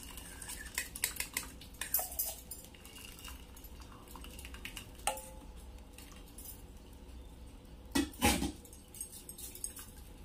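Stainless steel pot and mesh strainer clinking and knocking against each other while freshly curdled milk (chhena) is poured in to strain off the whey. Scattered light metal clicks, one brief ringing clink about five seconds in, and the loudest knocks about eight seconds in.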